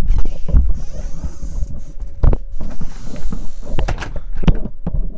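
Loud rumbling and irregular knocks of wind and handling noise on the microphone. From a little past halfway, a faint steady tone sounds underneath, which the listener takes for a distant tornado siren.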